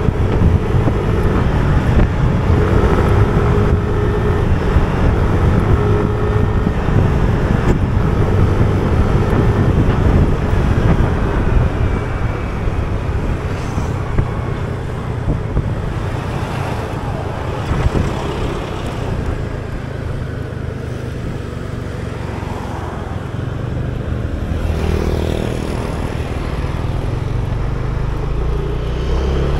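Riding a Yamaha motor scooter: its engine runs steadily under heavy wind rumble on the microphone. The engine note is stronger in the first ten seconds and again near the end, and softer in between.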